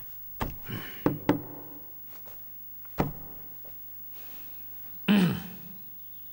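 Dull knocks and thuds as a pulse pillow and a forearm are set down on a cloth-covered table: three short knocks in the first second and a half, another about three seconds in. A louder thud with a short falling tone comes about five seconds in.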